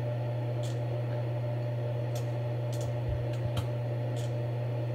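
A handful of light computer-mouse clicks, spaced unevenly over a few seconds, over a steady low hum.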